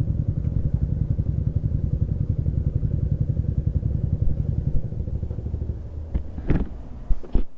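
Motorcycle engine running with a rapid, even throb that eases off about five seconds in, followed by a few sharp knocks near the end.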